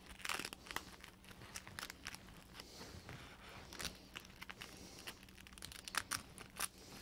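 Faint, irregular crinkling and crackling of a slit sanding disc being folded flap over flap and pressed onto the Velcro (hook-and-loop) face of a foam sanding pad.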